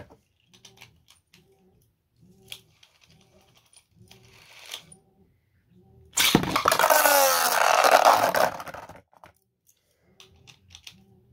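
A Beyblade being launched into a plastic stadium: a loud whirring rattle starts suddenly about six seconds in and lasts about three seconds. Faint clicks of handling come before it.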